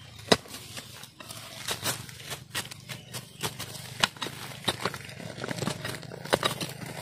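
Dry twigs and leaf litter crackling and snapping underfoot and against the body, with irregular sharp cracks, as someone pushes through dry brush. A low steady hum sets in about a second in.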